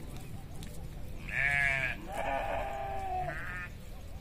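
Bleating from a flock of sheep and goats: a loud short bleat about a second in, then a longer, quavering bleat.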